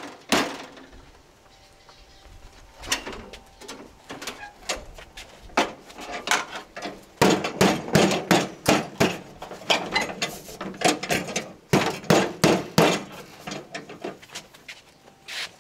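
Kubota M5700 tractor hood and hood support clanking and rattling as the hood is lifted open and the support is worked loose. There is a sharp knock at the start, scattered clanks, then a dense run of rattling knocks about halfway through.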